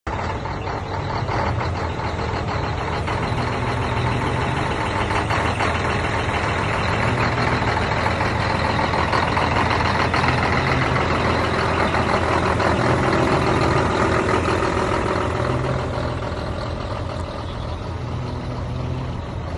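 Heavy truck engine running steadily, a dense mechanical noise with a low engine hum underneath, easing slightly near the end.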